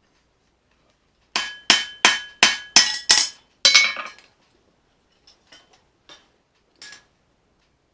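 Forging hammer striking a leaf-spring steel knife blade on an anvil: seven sharp, ringing blows at about three a second, then a few much lighter taps.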